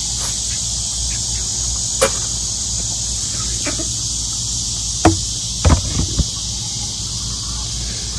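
Steady high-pitched insect chorus. A few short, sharp knocks stand out about halfway through.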